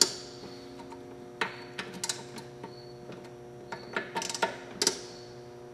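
Ratchet torque wrench clicking in short runs, with sharp metallic clicks, as the cylinder head bolts of a lawn mower engine are re-tightened. A steady hum runs underneath.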